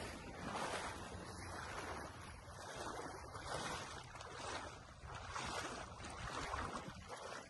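Muddy creek water sloshing and splashing in uneven swells, about one a second, as people wade through the shallows, over a low rumble of wind on the microphone.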